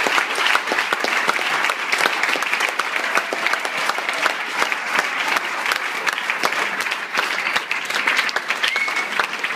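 Crowd of spectators applauding steadily at the end of a squash match, a dense patter of many hands clapping.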